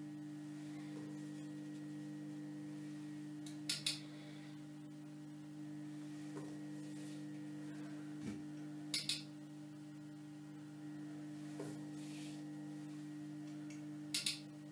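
Steady electrical mains hum under three sharp double clicks about five seconds apart, a darkroom enlarger timer or switch being pressed for each step of a test-strip exposure, with a few faint soft knocks of handling in between.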